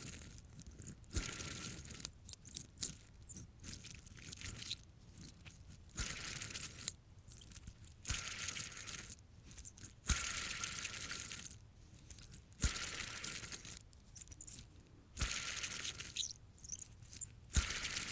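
Fidget spinner flicked again and again, each spin starting with a click and a squeaky whir that dies away within a second or two. Its bearings are dirty, so it squeaks and stops quickly.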